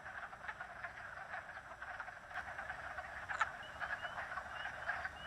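Breeding chorus of wood frogs: many overlapping, duck-like clucking calls. A few short, higher rising chirps join in from about three and a half seconds in.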